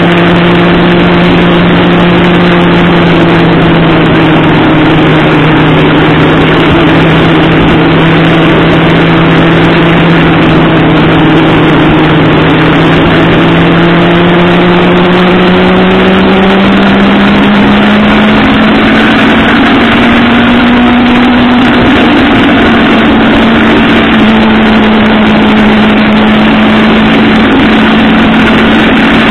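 Sport motorcycle engine running at a steady cruise under heavy wind rush; its note climbs gradually about halfway through and then holds at the higher pitch.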